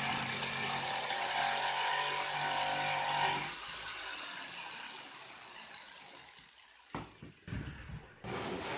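Corded jigsaw cutting 16 mm plywood, its motor running steadily for about three and a half seconds, then switched off and winding down. A few short knocks near the end as the saw is set down on the plywood.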